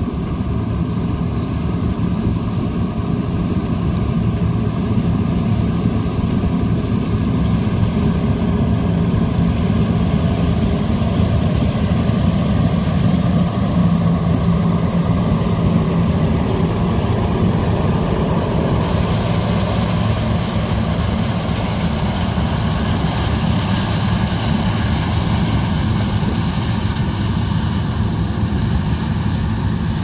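New Holland CR8.90 combine on Powerflex tracks harvesting corn with a Geringhoff 12-row corn head: a steady, heavy diesel engine and machinery drone that grows louder over the first third as the combine closes in. A high hiss jumps up suddenly about two-thirds of the way through.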